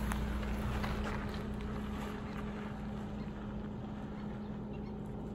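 Suzuki Jimny engine running with a steady hum at one constant pitch, fading slightly over the first two seconds, with wind noise on the microphone.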